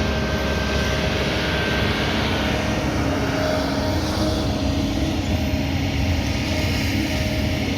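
Kobelco 220 excavator's diesel engine running steadily with a low drone and a faint steady tone above it; the higher hiss eases off about three seconds in.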